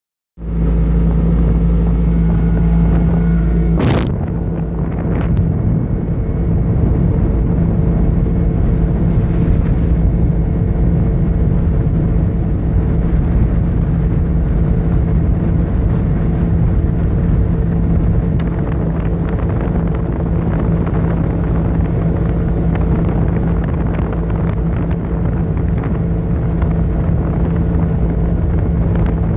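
Yamaha 90 hp two-stroke outboard motor running at a steady cruising speed, holding an even pitch, with wind buffeting the microphone. A sharp click sounds about four seconds in.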